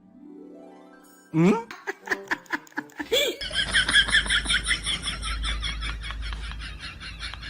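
A pitched tone glides upward for about the first second, then laughter breaks out in short bursts and settles into steady, rapid laughing, with music underneath.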